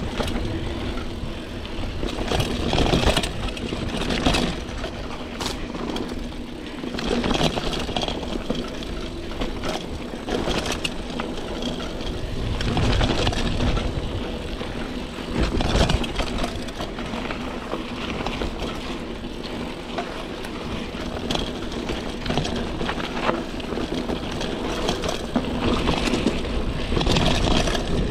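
Trek Marlin 7 hardtail mountain bike rolling fast down dirt singletrack. Its tyres rush over the dirt, and the bike knocks and rattles over bumps many times.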